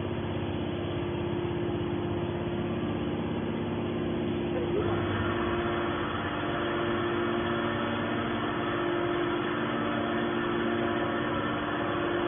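Hydraulic scrap metal baler's power unit running with a steady mechanical drone and a held hum, which takes on a harsher, higher layer about five seconds in.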